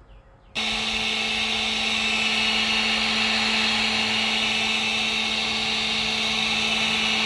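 Handheld electric hot-air blower switches on about half a second in and runs steadily with a constant motor hum, heating a leather repair to set the filler and colour.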